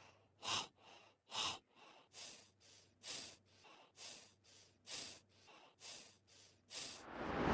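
A person panting, short breaths in and out about once a second, out of breath after jumping and stomping. A sound swells up near the end.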